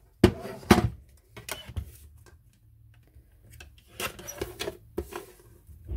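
A plastic paper trimmer being handled on a craft desk: two sharp knocks near the start as it is set down, then clicks and scraping of card sliding against the trimmer about four to five seconds in.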